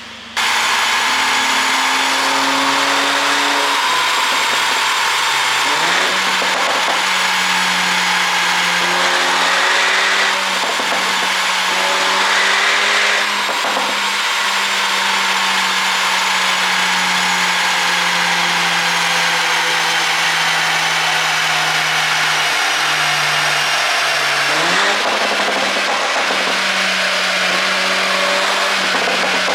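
Mercedes-AMG CLA 45's turbocharged 2.0-litre four-cylinder engine and exhaust, running on a pop-and-crackle ECU tune, held at a steady speed with a few short blips of revs. It starts abruptly about half a second in.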